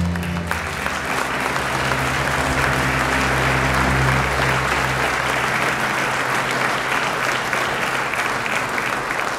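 Large audience applauding steadily, with the last held low chord of the anthem's music fading out under the clapping about halfway through.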